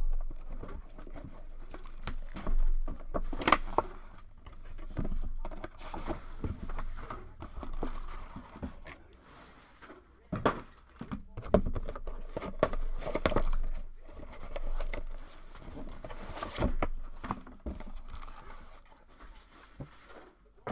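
Plastic wrapping crinkling and tearing as a trading-card mega box and its packs are opened by hand, with irregular rustles and sharp clicks from cardboard being handled.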